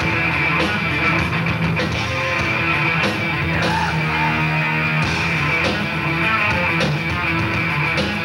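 A live heavy metal band playing: electric guitars, bass guitar and drum kit in a steady, loud, unbroken wall of sound.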